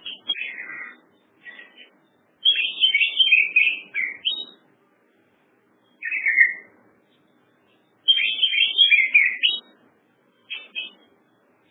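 A songbird singing in six short bursts of quick, high chirping notes, with gaps of a second or so between them. The longer phrases come about two and a half and eight seconds in.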